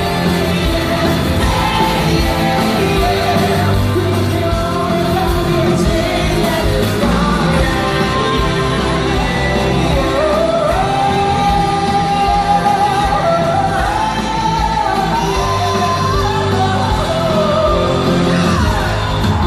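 Live rock band playing with a singer's long, sliding vocal lines over it.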